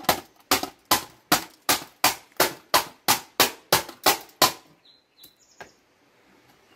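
Rapid, evenly spaced blows smashing a plastic CenturyLink modem, about three sharp strikes a second for some four and a half seconds, then stopping.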